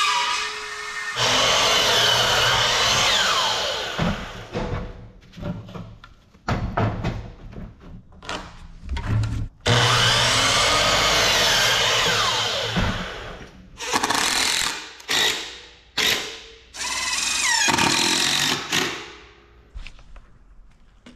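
Handheld power drill running in bursts, two of them several seconds long and many short stabs between, its whine rising and falling in pitch as the trigger is worked.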